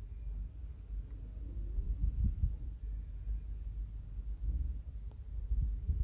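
Faint low knocks and rubbing from a precision screwdriver and fingers undoing the small screws inside an opened iPhone 6s. Under them runs a steady, high, evenly pulsing trill like an insect's.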